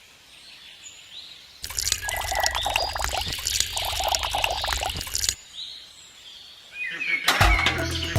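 A pouring, rushing noise lasting about four seconds, with small birds chirping before and after it. Music with a steady beat comes in near the end.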